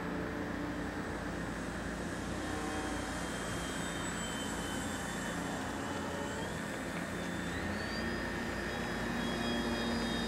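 Brushless electric motor and propeller of a small RC Piper Cub model plane whining steadily in flight, the whine rising in pitch about three quarters of the way through, over a steady rushing noise.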